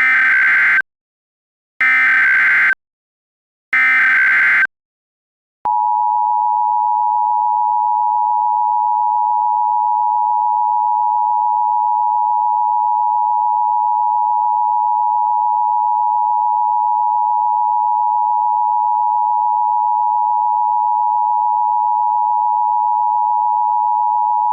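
Emergency Alert System tones: three short bursts of digital SAME header data, each about a second long and a second apart. Then the EAS attention signal, two steady tones sounded together, holds for about nineteen seconds.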